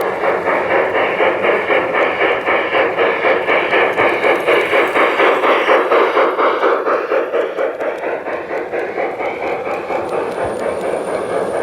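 LGB G-scale model train running past on garden track, with a rapid even pulse of about four to five beats a second that eases off in the second half.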